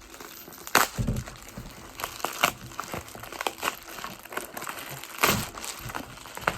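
Packaging being handled and opened: paper and cardboard crinkling and rustling, with scattered sharp clicks and knocks, the loudest about a second in and again about five seconds in.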